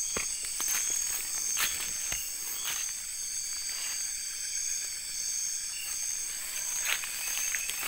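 Night chorus of insects such as crickets, a steady high-pitched trilling with a pulsing layer, with a few scattered footsteps and rustles in undergrowth.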